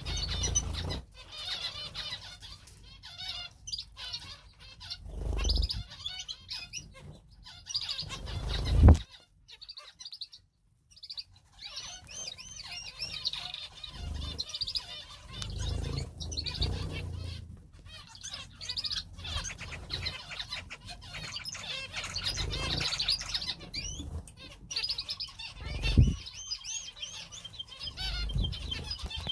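Small cage birds (finches and canaries) chirping busily, with wings fluttering as they fly about. Two loud knocks, one about a third of the way in and one near the end, and a brief gap of near silence after the first.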